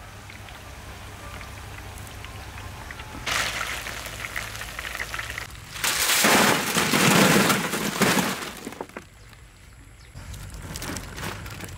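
Coated chicken wings deep-frying in a wide wok of hot oil, a steady sizzle and crackle. About six seconds in comes a loud, dense rattling rush lasting about three seconds, as a basket of crispy fried wings is tipped out onto a metal tray.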